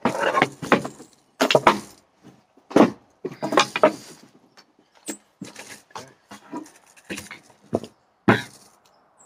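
Handling noise of a hard plastic pistol case and gear on a wooden bench: irregular knocks, clunks and rustles, in clusters through the first four seconds and once more near the end.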